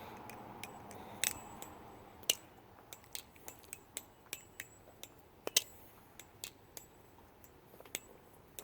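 Balisong being flipped: irregular sharp clicks of its handles and blade swinging and knocking together, about twenty over several seconds.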